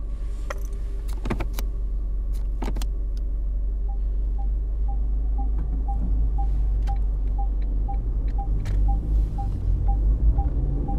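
Inside a car: steady low engine and road rumble, with a few sharp clicks and knocks in the first three seconds. From about four seconds in, a turn-signal indicator ticks evenly, about two ticks a second.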